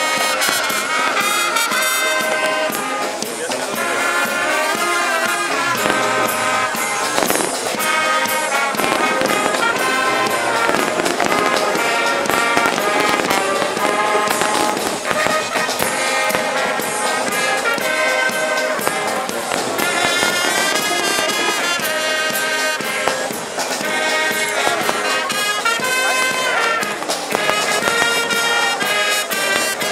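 Brass band music playing loudly, with the bangs and crackles of fireworks bursting over it.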